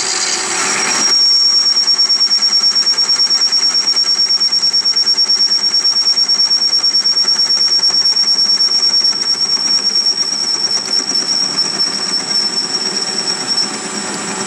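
Metal lathe turning a steel part while the cutting tool takes a cut. From about a second in, a steady high-pitched whine from the cut sits over the machine's running, pulsing rapidly in level, and it fades out shortly before the end.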